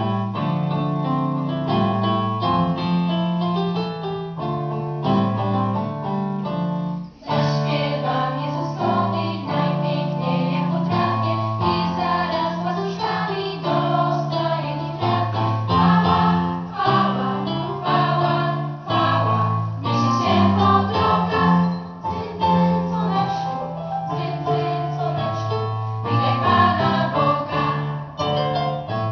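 An instrumental introduction of steady held chords. About seven seconds in, a girls' vocal ensemble comes in singing a Polish Christmas carol in several voices over the accompaniment.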